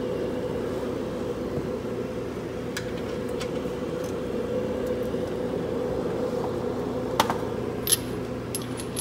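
A steady mechanical hum runs under the work, with a few sharp metallic clinks of hand tools and sockets, the two loudest about seven and eight seconds in.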